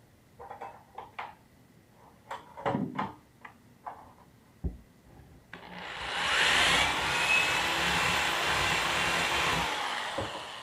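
A few light clicks and knocks, then a cordless drill runs for about five seconds as it bores into the ceiling to widen the hole for a swag anchor. The drilling fades out near the end.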